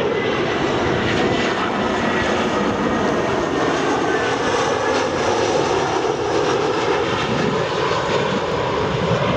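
Jet engines of an easyJet Airbus A319 passing low overhead on final approach, a steady, loud rushing noise with a faint high whine.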